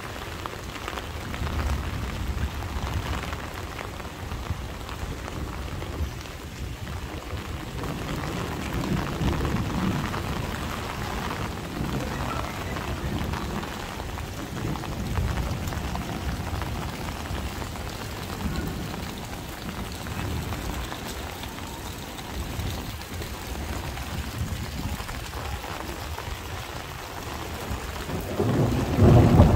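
Heavy summer downpour pouring steadily, with low thunder rumbling now and then. Near the end a much louder peal of thunder sets in.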